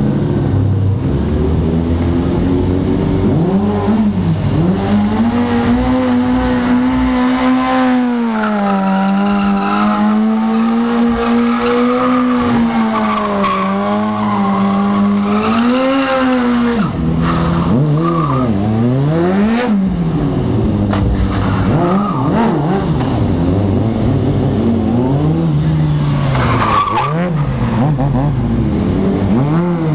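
A car doing a stunt: its engine is held at high revs with tires squealing. About halfway through, the engine is revved up and down sharply again and again.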